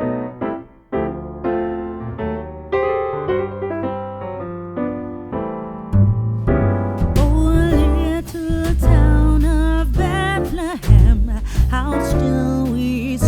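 Background music: an electric piano plays chords, then about six seconds in a deep bass and a lead melody with vibrato come in.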